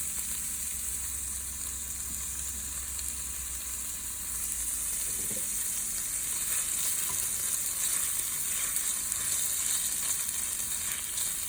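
Chopped onions sizzling in olive oil in a pot, a steady high hiss, with a few faint scrapes of stirring.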